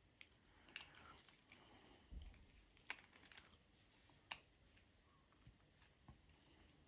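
A few faint, sharp metallic clicks and taps of pliers closing on a head pin's wire-wrapped loop while its cut tail is tucked in.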